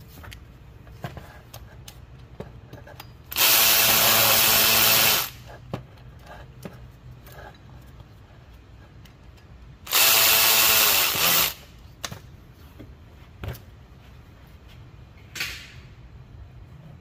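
Snap-on cordless power tool spinning out water pump pulley bolts: two steady runs of the motor whine, about two seconds and one and a half seconds long, then a short fainter burst near the end. Light clicks and clinks of the tool and bolts come between the runs.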